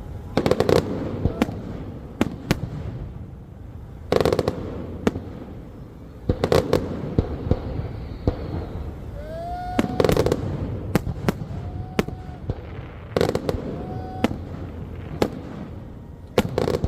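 Fireworks display: aerial shells bursting with sharp bangs about every three seconds, with crackling and popping between them and a few short rising whistles.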